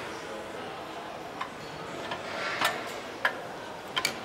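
A few sharp metal taps and clinks at uneven intervals, the loudest a little after three seconds in, over steady factory background noise: hammer and metal parts at work on a Bentley V8 engine during assembly.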